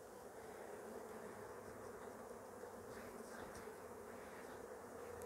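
A mass of honeybees, shaken onto a sheet as an artificial swarm, humming in a faint, steady drone.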